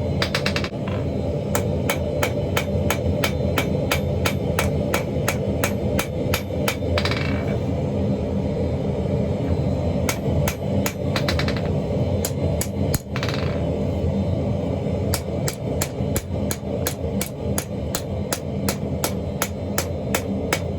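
Hammer blows on a chain-damascus billet being forged, struck in a fast, even rhythm of about three a second with two short breaks, over a steady low rumble.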